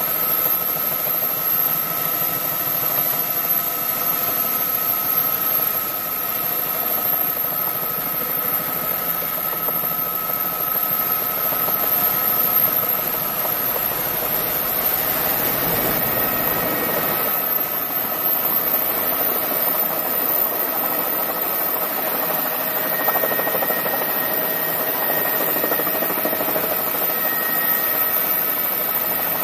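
Helicopter turbine and rotor running steadily, heard from inside the cabin: a rushing noise with steady high whines, as the helicopter descends to land.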